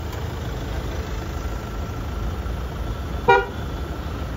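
Car horn giving one short toot about three seconds in, over a steady low rumble.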